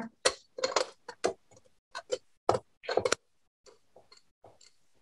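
A wedge of hard Pecorino Romano cheese rubbed down a handheld rasp grater: a quick series of short scraping strokes, about two or three a second, growing fainter after about three seconds.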